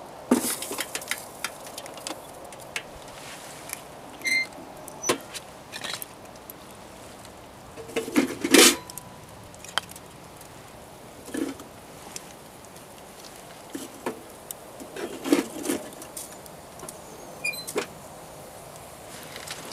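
Metal clanks and knocks from a homemade ammo-box wood stove as its round door is opened, firewood is pushed in and the door is shut and latched. A few of the knocks ring briefly like sheet metal, and the loudest clatter comes about halfway through.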